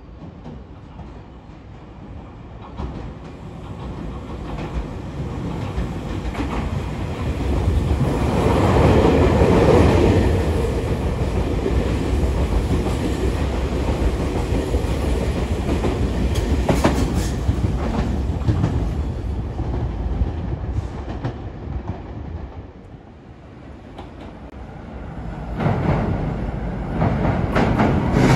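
Tobu 500-series Revaty limited express passing through the station without stopping, its wheels clattering over the rail joints. The sound builds to a peak about 9–10 seconds in, holds, and fades by about 23 seconds. Another train is heard approaching near the end.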